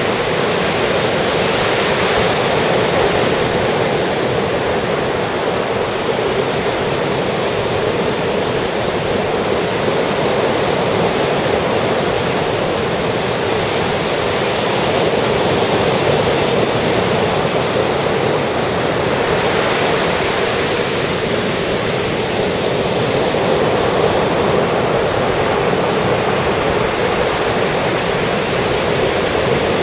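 Ocean surf breaking and washing up a sandy beach, a steady rush of water that swells gently as waves come in.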